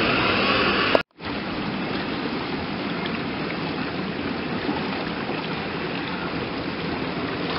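Steady rush of flowing water on a pool water slide and in the shallow pool below it, with a brief drop-out about a second in.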